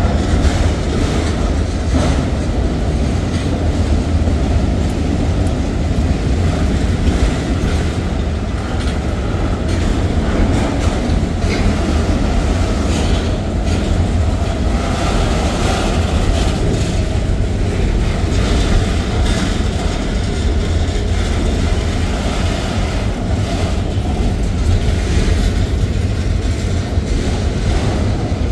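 Autorack cars of a freight train rolling past: a steady rumble of steel wheels on rail, with scattered clicks as wheels cross rail joints.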